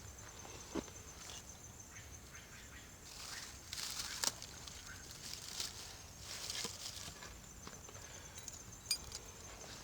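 Rustling and a few sharp clicks from gear being handled, over a steady high pulsed insect trill. The rustling is busiest in the middle.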